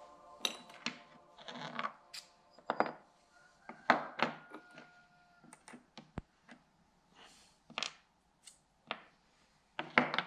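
Small metal parts and tools being handled: irregular clicks, taps and knocks, with a short metallic ring about four seconds in.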